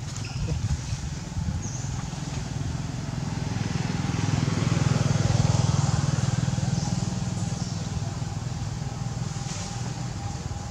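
Low drone of a motor vehicle engine, swelling to its loudest about halfway through and then fading, as a vehicle passing by.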